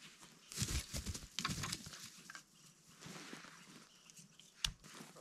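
Faint rustling and scuffing of a dog and a man moving about on a mossy forest floor, with a few small snaps and one sharp click near the end.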